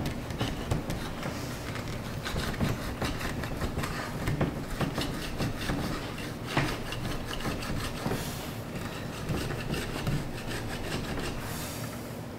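Spline roller wheel rolling along a screen door frame's groove, pressing the spline and pet-resistant screen into the channel. It makes a continuous rubbing scrape broken by many small irregular clicks.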